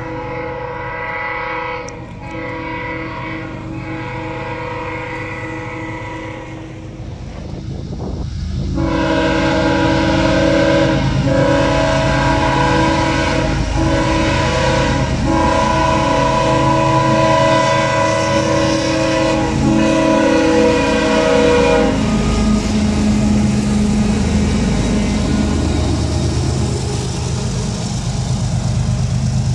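Freight locomotive FSRR 4714's multi-note air horn blowing long chord blasts, with a short break about seven seconds in, then stopping about three-quarters of the way through. After it, the passing train's diesel engines and wheels rumble on.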